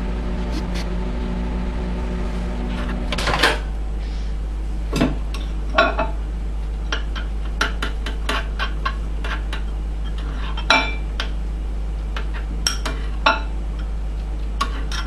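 Microwave oven running with a steady hum that stops with a clunk about three seconds in, followed by scattered clinks and knocks of a bowl and spoon being handled.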